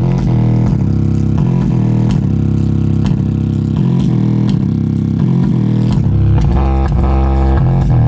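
Bass test music playing loud through a homemade speaker's woofer: deep held bass notes that change pitch every second or so, with sharp percussive ticks over them.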